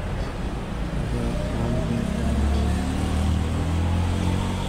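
A vehicle engine running with a steady low hum. It swells about a second in and eases off near the end.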